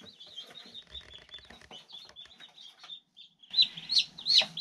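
Newly hatched chicken chicks peeping: a run of soft, high cheeps, then a string of much louder peeps starting about three and a half seconds in.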